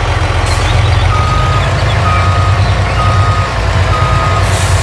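Truck reversing alarm beeping about once a second, four beeps, over the steady low rumble of a running truck engine.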